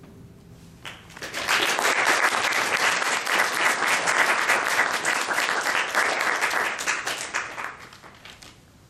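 The last note of a nylon-string classical guitar fades out, then an audience applauds for about seven seconds, dying away near the end.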